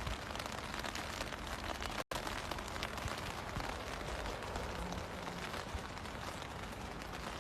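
Steady hiss-like noise spread evenly across all pitches, cutting out for an instant about two seconds in.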